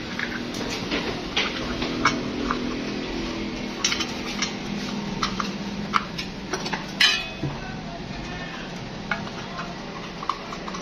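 Scattered light clicks and knocks of hard plastic and metal as a red plastic terminal box cover is pressed onto an electric water pump motor's aluminium housing and its cable is handled, with a sharper clack about seven seconds in.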